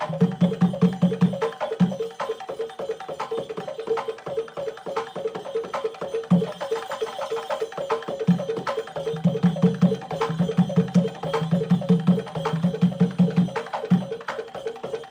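Percussion music: rapid, dense clicking strokes like a wood block over a steady held tone, with runs of quick low drum beats that drop out and return.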